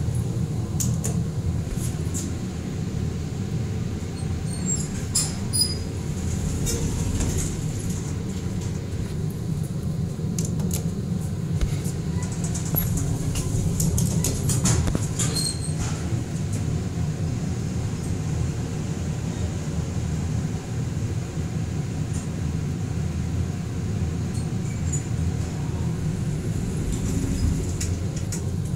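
Steady low rumble inside a traction elevator cab, with a few sharp clicks from the car's push-buttons being pressed in the first half.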